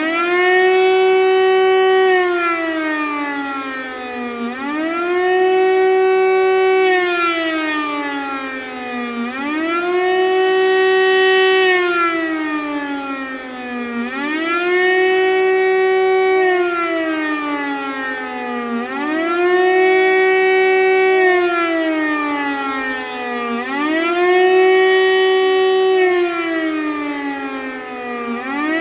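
Siemens FM Si 41 electric motor siren wailing the 'Warnung der Bevölkerung' public-warning signal: the tone rises, holds its high note for about two seconds, then slides down, repeating about every four and a half seconds. A second, fainter rising and falling tone runs out of step with it.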